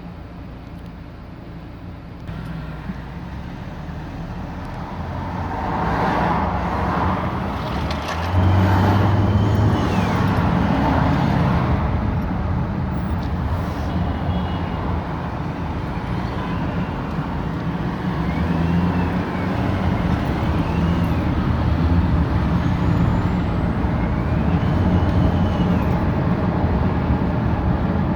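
Turbocharged car engine running and pulling, with a high turbo whistle that rises and falls several times over the engine's rumble. The whistle has newly appeared, while the engine keeps its power and the car drives normally.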